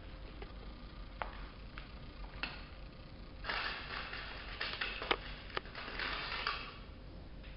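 Hands rustling hair as a bun is pinned in place, with a few light clicks, then a longer stretch of rustling in the second half.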